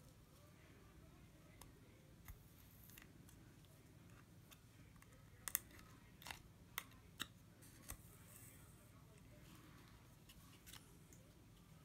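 Quiet bead-embroidery handling: a needle pushed through the backing with a metal thimble and drawn through glass seed beads, giving small sharp clicks, most of them in a cluster about five to eight seconds in, over faint room hiss.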